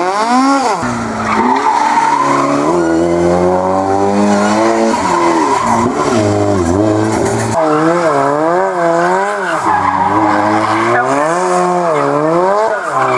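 Rally car engines revving hard, the pitch swinging quickly up and down as the cars are held in doughnuts, over tyres skidding and squealing on tarmac. The engine note changes abruptly about seven and a half seconds in as one car gives way to the next.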